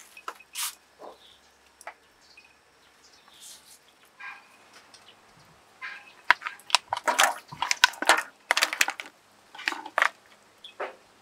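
Clams clacking against one another and against a stainless-steel pot as they are slid off a plate into the water. A dense run of sharp clicks and knocks comes about six seconds in and lasts some four seconds, with a few lighter clicks before it.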